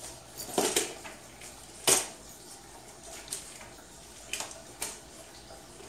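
Metal frame of a folding rollaway bed clanking as it is handled and stood upright on its casters: a clatter just under a second in, a sharp knock near two seconds, then a few lighter clicks.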